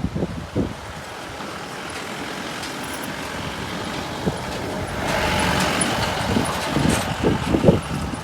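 A motor vehicle passing close by, its engine and tyre noise swelling about five seconds in and easing near the end, with wind thumping on the microphone.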